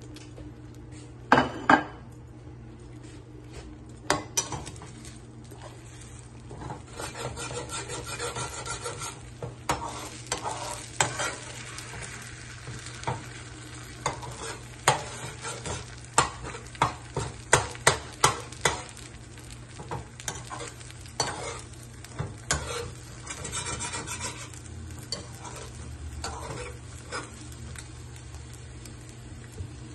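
Scrambled eggs sizzling in a frying pan while a slotted spatula stirs and scrapes them, with a run of sharp clicks and taps of the spatula against the pan, thickest through the middle. A steady low hum runs underneath.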